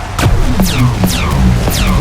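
Electronic dance music with a heavy, pulsing bass and a high synth sweep that falls in pitch, repeating about twice a second.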